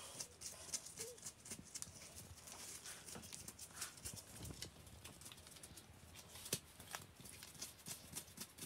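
Faint, irregular small clicks and pops of gloved hands plucking wet feathers from a chicken carcass.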